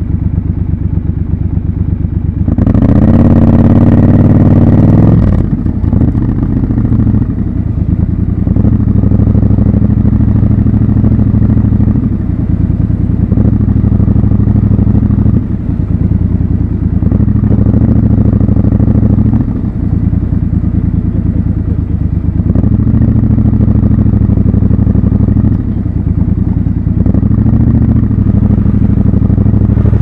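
Triumph Scrambler 1200 XC's 1200 cc parallel-twin engine idling, then revving up hard for about three seconds as the bike pulls away. It then runs steadily through traffic, the throttle closed and reopened every few seconds.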